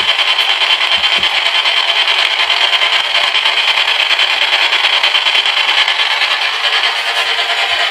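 Ghost box sweeping through radio frequencies, giving out a steady hiss of radio static.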